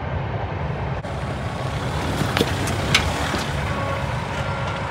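2021 Mahindra Thar's petrol engine running steadily with a low rumble, with two short sharp clicks a little past the middle.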